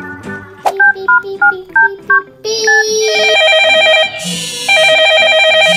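Telephone sound effect: a quick run of about six keypad dialing beeps, then a trilling phone ring, heard twice.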